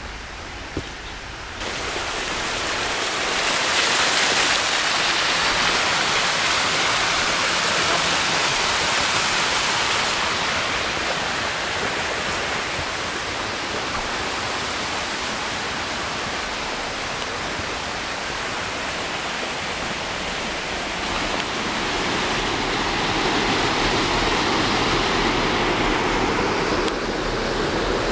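Steady rush of cascading water, starting abruptly about a second and a half in and swelling and easing a little in loudness.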